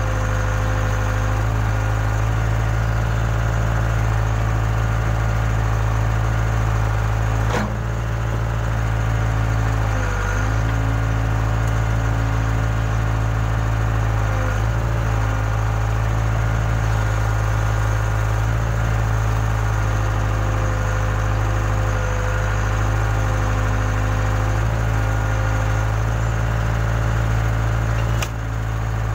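Case 580K backhoe loader's diesel engine running steadily as it works, with small dips and wobbles in pitch. Two brief sharp clicks, one about seven seconds in and one near the end.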